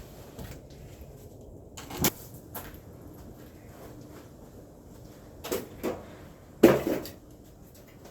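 A few separate short knocks or clunks: one about two seconds in, two close together around five and a half to six seconds, and the loudest just before seven seconds.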